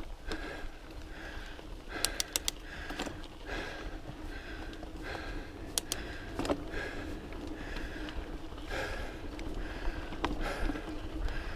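A mountain biker breathing hard while riding, a quick breathy huff about every half second. A few sharp clicks cut in: three in quick succession about two seconds in and one more about halfway through.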